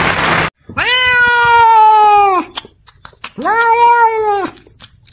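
A domestic cat giving two long, drawn-out meows, the first about a second and a half long and the second shorter, each dropping slightly in pitch at the end. A brief rush of noise cuts off just before the first meow.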